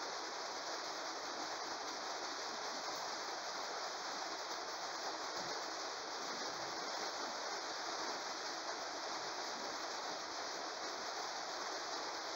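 A steady, even hiss with nothing else standing out: background noise of the recording room.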